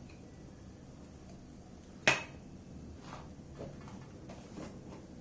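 A spoon clinking against cookware as spices are added to roasting gram flour: one sharp clink about two seconds in, then several lighter taps.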